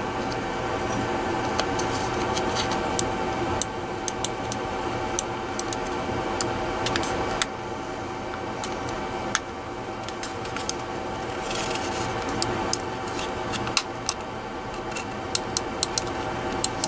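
Small plastic clicks and ticks of a precision screwdriver and a wireless mouse's plastic case being handled and screwed together, scattered and irregular, with a cluster of clicks near the end. A steady hum runs underneath.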